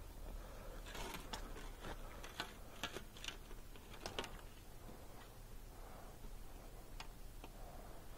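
Metal threaded pipe fittings clicking and clinking in gloved hands, with a quick run of sharp ticks from about one to four seconds in and a single tick near seven seconds.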